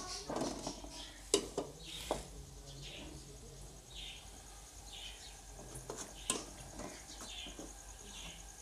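Metal ladle knocking and scraping against an aluminium cooking pot as frying masala is stirred, with parrots squawking over and over in the background from about three seconds in.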